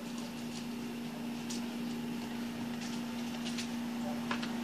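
A steady low mechanical hum, with a few faint clicks scattered over the last three seconds.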